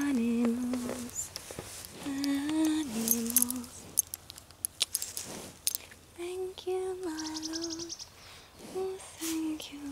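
A woman softly humming a slow, simple tune in held notes that step down in pitch, in four short phrases with pauses between them.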